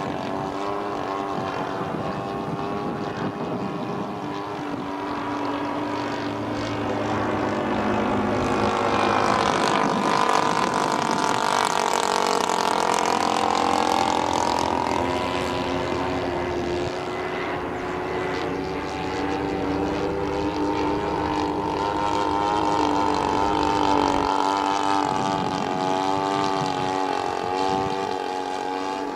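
Two-stroke engine of a giant-scale radio-control model airplane, converted from a Husqvarna chainsaw, running with its propeller as the plane flies. The engine grows louder and its pitch rises then falls between about nine and fifteen seconds in as it passes, and it swells again later on.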